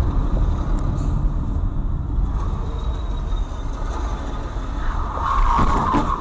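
Steady low rumble of road and engine noise heard from inside a moving car through a dashcam. About five seconds in, a louder, harsher noise swells over it.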